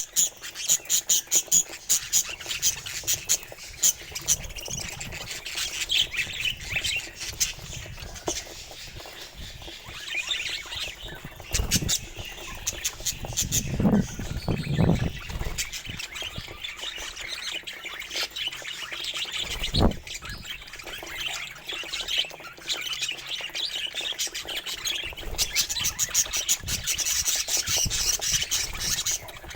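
A flock of budgerigars chirping and chattering in rapid, continuous twitters. A few brief low sounds come about halfway through.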